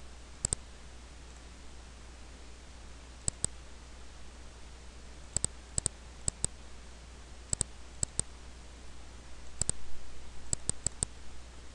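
Computer mouse button clicks, each a quick press-and-release pair, a dozen or so at uneven intervals, with several in quick succession near the end, over a steady low hum.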